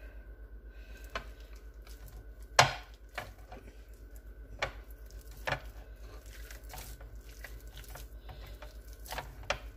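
Hands kneading a sticky, gooey dough of mashed ripe plantain, egg and flour in a glass bowl: soft squishing with scattered light clicks and knocks, the sharpest about two and a half seconds in, over a steady low hum.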